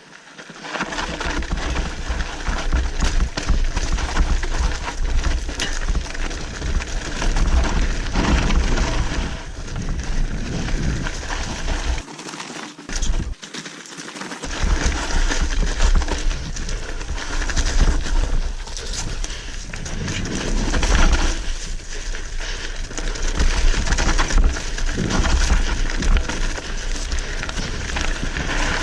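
Mountain bike ridden fast down a dirt trail: tyres rolling and scrabbling over rough ground, with constant knocks and rattles from the bike, under heavy wind rumble on the camera's microphone. The low rumble cuts out briefly twice near the middle.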